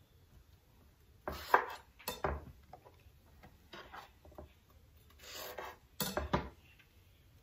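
Chef's knife slicing eggplant on a wooden cutting board: a few sharp knocks of the blade hitting the board, the loudest about a second and a half in, with lighter ticks between them and a short rasping sound near the end.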